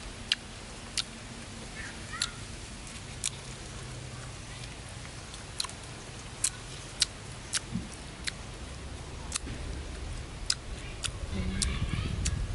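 A person eating grilled sausage close to the microphone: irregular sharp, wet mouth clicks of chewing and lip-smacking, about one or two a second. A low rumble swells near the end.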